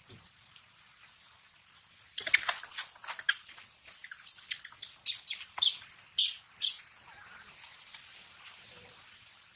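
A young macaque giving a rapid run of short, high-pitched squeaks, starting about two seconds in and stopping about five seconds later.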